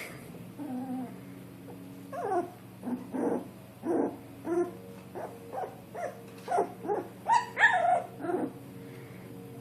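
Young puppies whimpering and squeaking in a run of short cries that bend up and down in pitch, one or two a second, the loudest and highest ones about three-quarters through. A low steady hum runs underneath.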